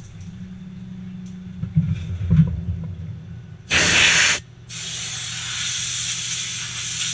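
Low hum of the lathe with a couple of knocks, then a hand-held compressed-air blow gun blasting the turned part and chuck: a short burst a little under four seconds in, then, after a brief pause, a longer steady hissing blast.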